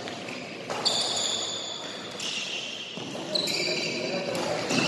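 A badminton rally: sharp racket hits on the shuttlecock about every second and a half, with shoes squeaking briefly on the court floor, echoing in the sports hall.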